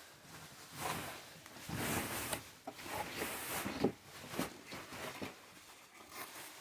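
Packaging being opened and handled by hand: a series of short, irregular rustling and sliding noises.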